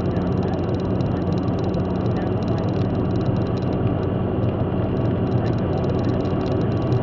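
Steady road and engine noise heard inside a car driving at motorway speed.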